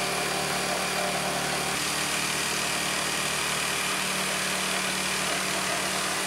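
Corded Bosch jigsaw running steadily, its reciprocating blade sawing in a straight line through the board top of a workbench.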